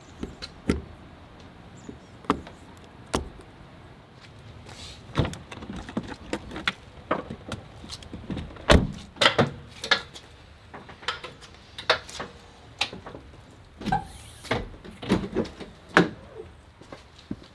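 Irregular clicks, knocks and thumps of gear being handled around a pickup truck: a plug pulled from an outlet, a door, and bags and cases moved in the bed. The loudest knock comes about nine seconds in.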